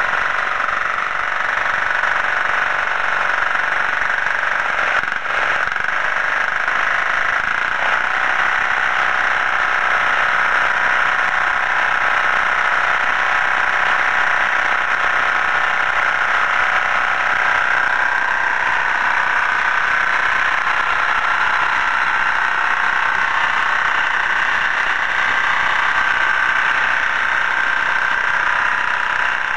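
Single-cylinder air-cooled 456 cc Chinese 186F diesel engine (13 hp Winsun) running steadily on a blended fuel made from waste french fry oil.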